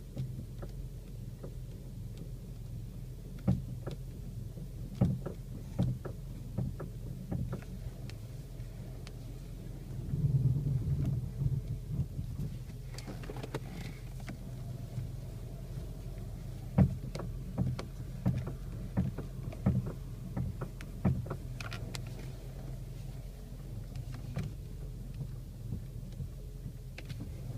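Volkswagen Golf Mk6 steering knocking as the wheel is turned hard right against its lock, a fault the owner is recording. The knocks come irregularly, many times, over a steady low hum, with a louder stretch of low noise about ten seconds in.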